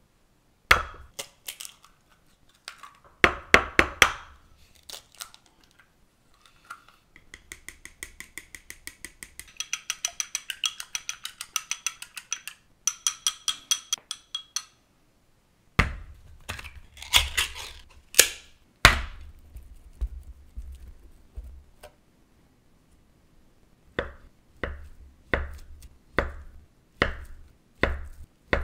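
Kitchen prep sounds: eggs cracked on a bowl, then beaten with chopsticks against a ceramic bowl in quick, even clicks for several seconds, then a few sharp knocks. Near the end, a chef's knife slices through a block of Spam onto a wooden cutting board, about two cuts a second.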